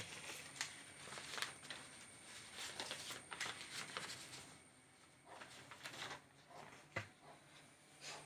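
Hand-drawing strokes, a run of short scratchy strokes with brief pauses between them, as a diagram is sketched, over a faint steady high-pitched whine.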